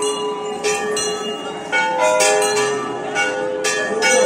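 Temple bells struck again and again, a strike every half second or so, several bells of different pitch ringing on over one another.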